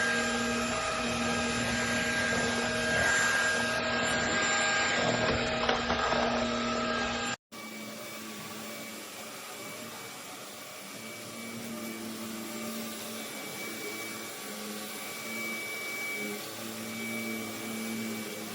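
Cordless stick vacuum cleaner's motor running with a steady whine. It breaks off abruptly about seven seconds in, and a quieter, differently pitched vacuum whine runs on after it.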